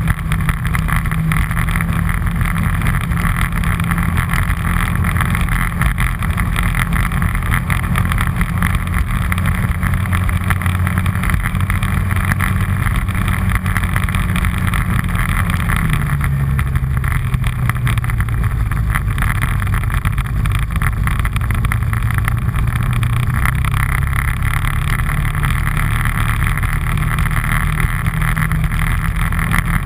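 All-terrain vehicle engine running steadily under way. Its pitch drops about halfway through, then slowly climbs back near the end.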